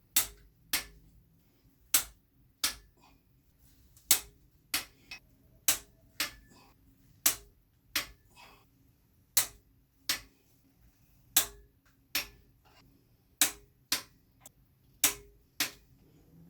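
Click-type torque wrench clicking as the cylinder head bolts of a Honda B20 are torqued down, each click marking a bolt reaching its set torque. About twenty sharp clicks, irregularly spaced at roughly one a second, some in quick pairs.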